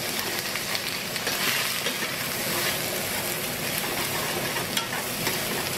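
Onions and tomato paste sizzling steadily in hot oil in a pan as they are stirred, with a few faint clicks of the utensil.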